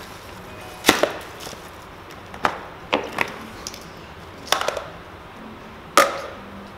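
Hard plastic parts of a Pikmi Pop toy container clicking and knocking together as it is pulled apart and handled: about seven sharp clicks, loudest about a second in and near the end.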